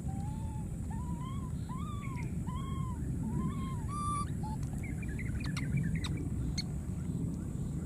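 Infant macaque crying: a run of about six short coos, each rising then falling in pitch, one after another over the first four seconds, then a few fainter high chirps. A steady low rush runs beneath.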